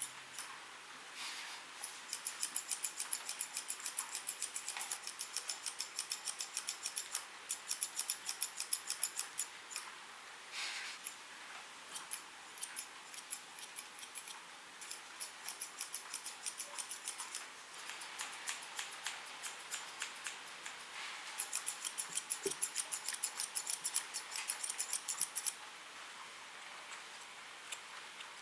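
Grooming scissors snipping through a Pomeranian's fur. The snips come in quick runs of several cuts a second, with short pauses between the runs.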